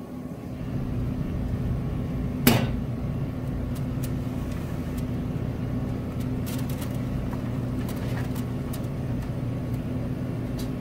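Steady hum of a running Traeger pellet grill's fan, with one sharp metallic clank about two and a half seconds in and a few light clinks as a foil pan is worked off the grill grate.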